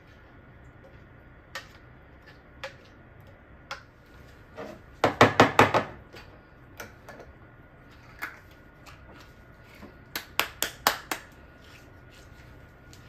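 A small glass jar filled with basil sauce knocked down repeatedly on a hard surface to settle the sauce, in two quick runs of about five knocks a few seconds apart, with a few single lighter clicks of glass before them.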